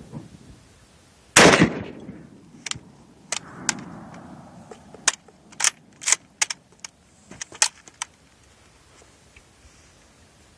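A single rifle shot about a second and a half in, with a long fading echo, followed by a run of sharp clicks and knocks over the next several seconds.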